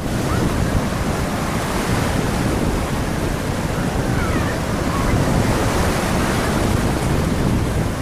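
Sea of Azov surf breaking on the beach, a loud continuous rush, with strong wind buffeting the microphone. The rush swells a little after the middle.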